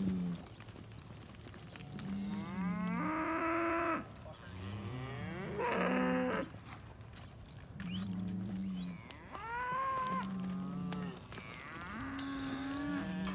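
Cattle mooing again and again, about half a dozen calls of a second or two each, some low and level, others higher and bending in pitch.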